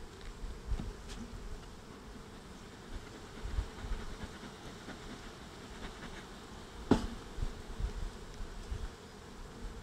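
Honeybees buzzing steadily around an opened hive while frames are being worked. A single sharp knock about seven seconds in, from the hive tool levering the frames, is the loudest sound.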